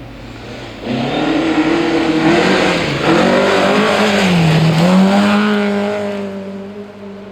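A rally car's engine comes in loud about a second in, with its revs dropping and climbing again twice. It then holds a steadier note and fades away as the car goes past.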